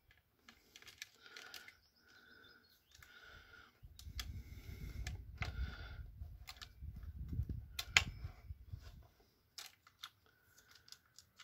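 Saw chain being worked by hand onto a chainsaw's guide bar and clutch sprocket: scattered small clicks and rattles of the chain links, with one sharp click about eight seconds in. A low rumble runs through the middle few seconds.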